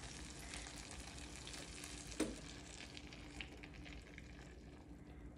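Faint sizzling and crackling of butter and tomato slices frying in a skillet as beaten eggs are poured over them; the crackles thin out near the end. A single light knock about two seconds in.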